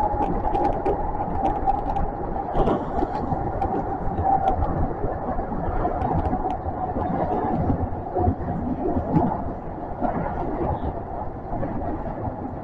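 Kintetsu train running through a subway tunnel, heard from inside the front car: a steady rumble with a sustained high tone and scattered light clicks from the wheels and track.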